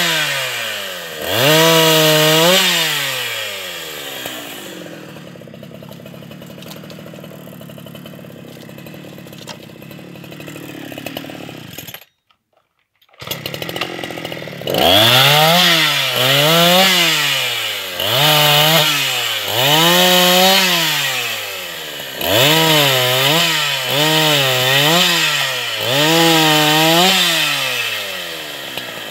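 Hyundai H865 two-stroke petrol chainsaw, revved up and let back down again and again while cutting firewood logs, with a stretch of several seconds at idle. The sound cuts out completely for about a second midway; after that come quick revs about once a second, before it settles back to idle near the end.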